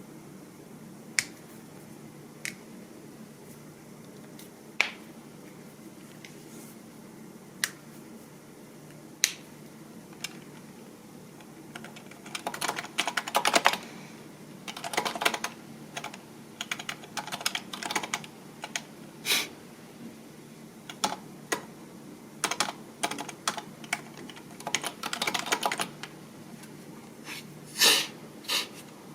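Computer keyboard being typed on: single isolated keystrokes every second or two at first, then from about twelve seconds in, runs of fast typing broken by short pauses, with a few louder key strikes.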